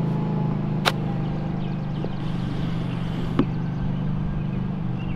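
A pitching wedge strikes a golf ball on a chip shot about a second in, one sharp click. A steady low hum runs underneath.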